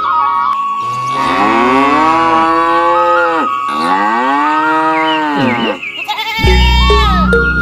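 Cow mooing twice: two long calls, each rising then falling in pitch, over background music. The music swells with a bass line near the end.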